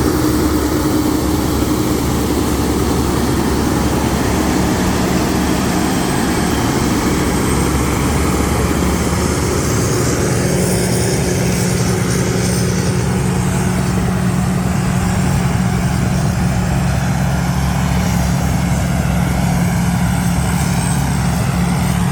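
Combine harvester engine running steadily under load, a continuous low engine drone.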